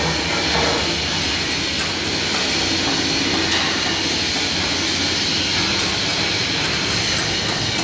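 Arc welding crackles briefly at the start, then stops. A loud, steady workshop din carries on throughout, echoing in a steel compartment.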